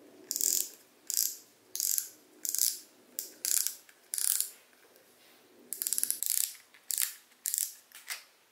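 Spinning fishing reel's mechanism ratcheting in about a dozen short bursts of rapid clicks, each lasting well under half a second.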